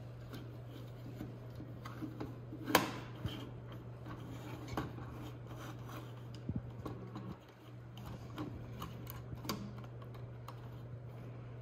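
Small plastic building-brick model being handled and turned on a tabletop: scattered light clicks and knocks of plastic on plastic and on the table, with one sharper knock about three seconds in, over a steady low hum.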